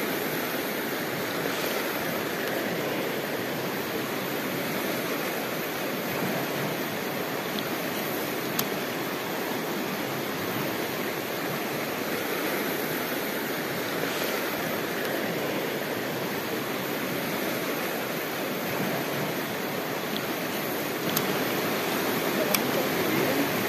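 Fast-flowing river current rushing steadily over and around rocks.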